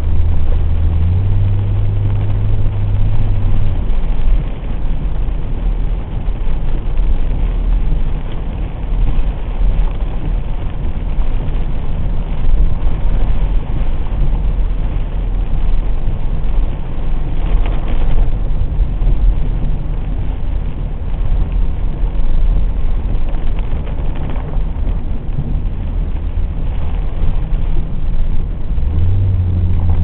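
Car driving a winding road on wet tarmac: steady low engine rumble with tyre and road noise, the engine note stepping up in pitch about a second in, fading a few seconds later and rising again near the end.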